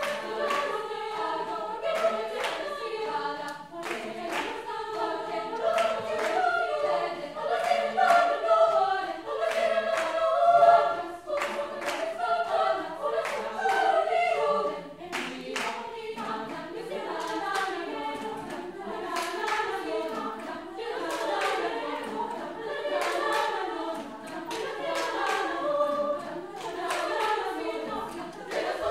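All-female school choir singing in parts, with sharp hand claps from the singers keeping time over the singing.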